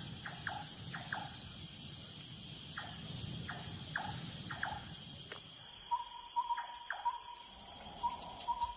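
Rainforest insect chorus: a steady high drone with short falling chirps scattered over the first half. From about six seconds in, a pulsing call around a single pitch joins.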